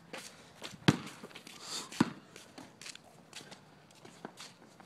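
Two sharp knocks, about a second in and two seconds in, with light footsteps scuffing on the pavement between them.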